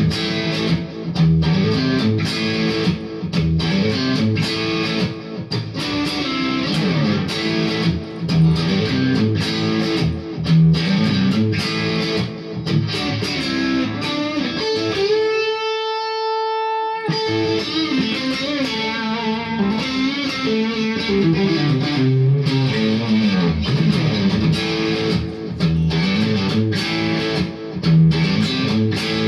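Kogai Tele 72 custom Telecaster-style electric guitar on its neck pickup, played as an improvised single-note lead through a Randall RG50TC EL34 tube amp with a TC Electronic Flashback delay. About halfway through, one note is held and rings on for roughly two seconds.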